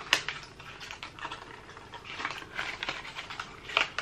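Small plastic cosmetic packaging being handled: a quick run of light clicks and crinkles, with a sharper click just after the start and another near the end.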